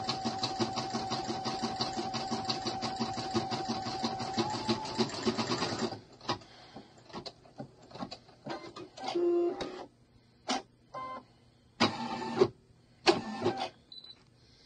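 Computerized embroidery machine stitching rapidly with a steady whine, stopping about six seconds in. Then come a few short separate mechanical whirs and clicks, and a brief high beep near the end as the design finishes.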